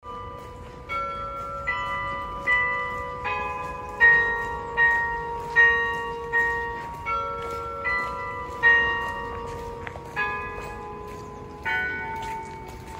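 Tuned bells playing a slow melody, one struck note about every 0.8 seconds, each ringing on and fading under the next.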